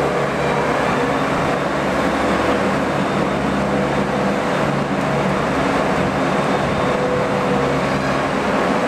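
A machine or engine running steadily: a continuous loud noise with a low hum underneath.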